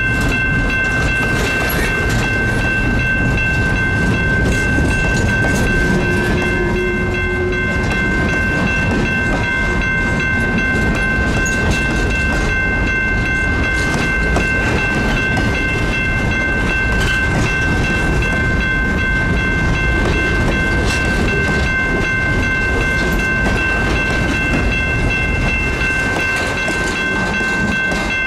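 Freight cars of a slow-moving CSX train rolling past: a steady rumble and clatter of steel wheels on the rails, with a high, steady squeal held underneath the whole time.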